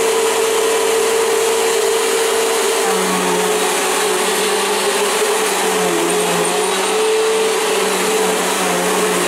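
Bissell PowerGlide Pet 1044 upright vacuum running on carpet with a freshly replaced brush roll belt: a loud, steady motor whine, joined about three seconds in by a lower hum that shifts in pitch now and then as the vacuum is pushed over the carpet.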